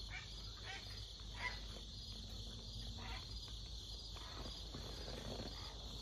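Insects chirping steadily in a fast, even pulse, with a few faint, distant bird calls; one sounded like a crane flying over.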